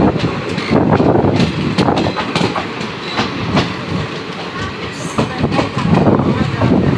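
Passenger train's coaches rushing past at speed on the adjacent track, close by, wheels clacking rapidly and unevenly over rail joints over a steady rushing noise, heard from the window of another moving train.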